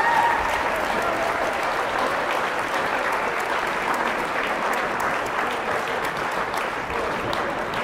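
Crowd applauding steadily, many hands clapping in a gymnasium.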